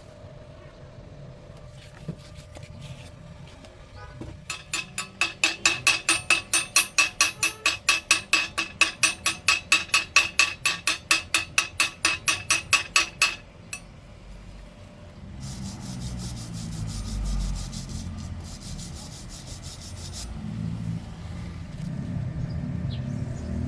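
A hand tool worked rapidly back and forth over metal, about four rasping strokes a second for roughly nine seconds, with the metal ringing under each stroke; it stops suddenly. A low rumble with hiss follows in the second half.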